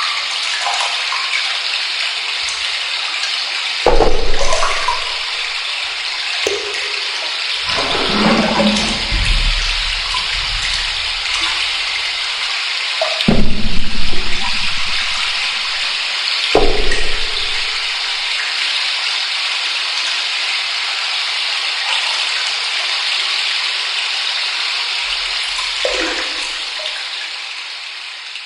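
Shower running: a steady hiss of spraying water, broken by several louder splashes and thumps, the loudest about halfway through, then fading out at the end.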